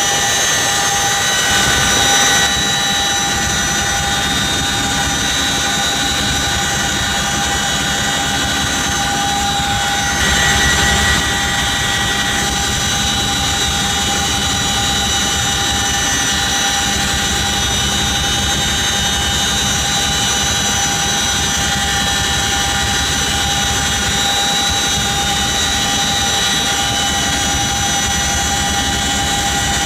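CH-47 Chinook tandem-rotor helicopter in flight, heard from inside its cargo bay with the rear ramp open: a loud, steady turbine and gearbox whine of several high tones over a dense rotor and wind noise, briefly louder about ten seconds in.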